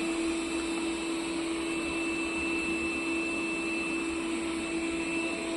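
Steady machine hum with a constant low tone and a thin high whine, unchanging throughout.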